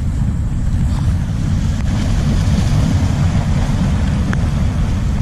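Wind buffeting the microphone in a steady low rumble over the wash of sea waves breaking against a rock breakwater, with a few faint ticks.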